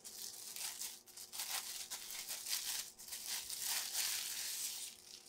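Clear plastic bag crinkling and rustling as it is worked off a boxed part by hand: a steady run of small crackles that dies down near the end.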